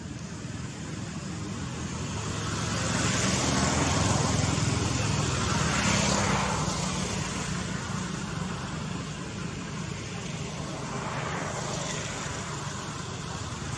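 A motor vehicle passing on a road: engine and tyre noise swell to a peak about four to six seconds in and fade away, with a second, smaller pass near the end.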